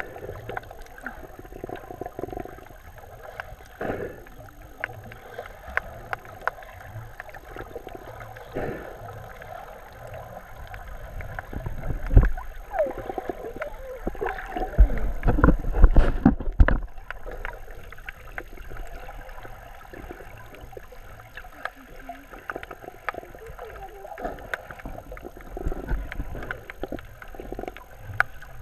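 Muffled underwater sound from a submerged action camera: water moving over the housing, with many small clicks and crackles scattered throughout. About twelve seconds in it grows louder, with low rumbling and gurgling until about seventeen seconds.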